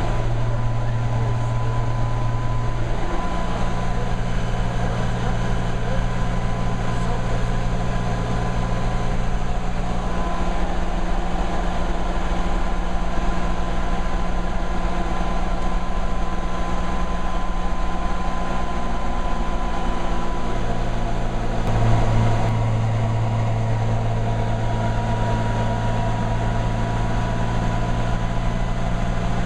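Bell 47G-4A helicopter's six-cylinder Lycoming piston engine running with the main rotor turning, heard from the cockpit. It makes a steady drone with a thin whine above it, and the engine note shifts slightly a few times.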